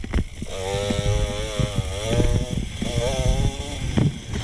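Dirt bike engine revving up and down again and again while riding single track, with a few sharp knocks from the bike over the ground. The recording is played at double speed.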